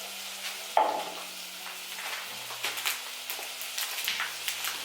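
Chicken frying in hot oil: a steady sizzle with scattered pops and crackles, and one louder brief clatter just under a second in.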